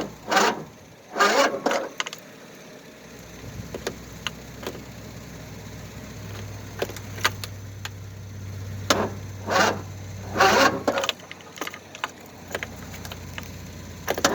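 Gusts of wind buffeting the microphone in irregular bursts, over a low steady engine hum that sets in after a couple of seconds and fades near the end.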